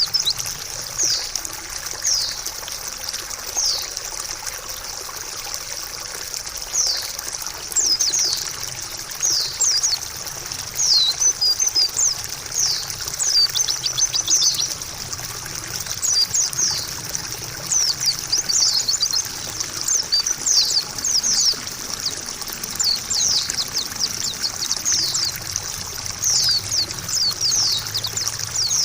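Pleci (white-eye) birdsong over a steady trickle of running water: the bird gives clusters of quick, high, falling chirps throughout.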